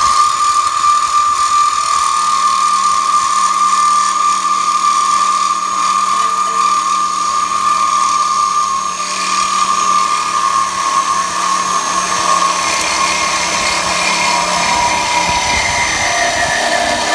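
Reciprocating saw running steadily, cutting through a rusted steel muffler hanger under a car, with a constant high motor whine. Its pitch drops a little in the last few seconds.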